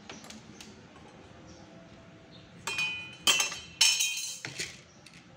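A short run of loud clinks of hard objects about halfway in, four sharp strikes that each ring briefly.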